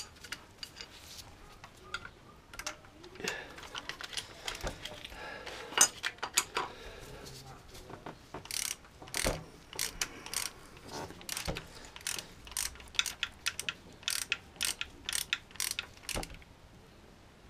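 Ratchet wrench clicking as it is swung back and forth to tighten a bolt. Scattered clicks at first, then quick runs of clicking from about halfway in.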